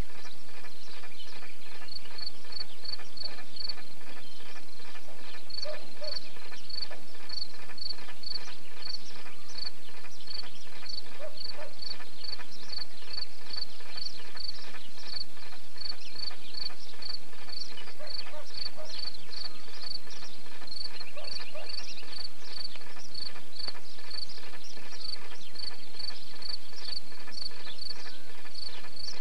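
Crickets chirping steadily in a meadow, a high, even chirp about three times a second, with a brief buzz from another insect or bird about two thirds of the way through.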